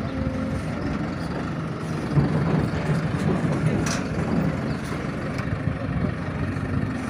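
Engine of a heavy work vehicle running steadily, with a short metallic clank about four seconds in.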